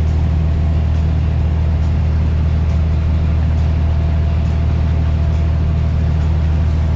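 Fishing boat's engine running steadily: a constant low hum with a faint steady higher tone over it.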